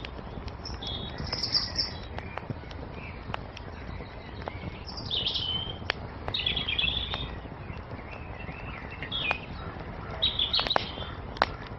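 Songbirds singing short chirping phrases every few seconds over the sharp crackles and pops of a burning wood fire, with a steady low rumble beneath.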